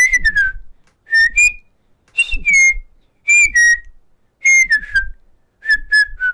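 A person whistling a tune in short phrases of two or three notes, about one phrase a second, some notes sliding up or down, with a low rumble under each phrase.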